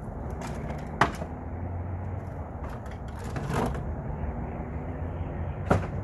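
Pieces of broken concrete handled and dropped into a metal wheelbarrow: two sharp clanks, about a second in and near the end, with a scraping rattle in between, over a low steady hum.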